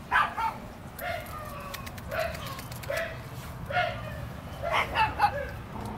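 Dog barking and yipping in short, repeated barks, about one or two a second.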